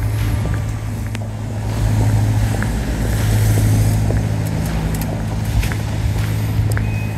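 City street traffic on wet pavement over a steady low hum, swelling twice as vehicles pass.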